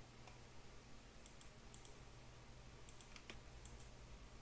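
Near silence with a low hiss, broken by a handful of faint computer mouse clicks, the clearest a little past three seconds in.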